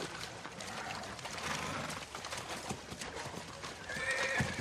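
Several horses walking through shallow swamp water, their hooves clopping and splashing irregularly. About four seconds in, a horse gives a short whinny.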